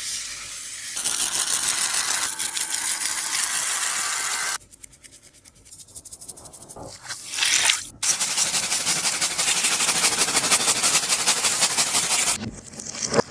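Dense crinkling and crackling of a tape-covered taba squishy being squeezed and handled, in two long stretches with a quieter spell of softer handling between them.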